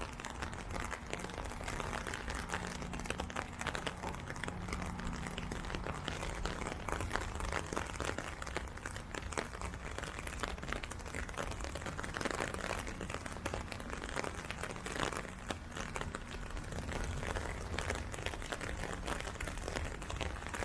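Steady heavy rain, a dense crackling patter of drops close to the microphone, over a low steady rumble.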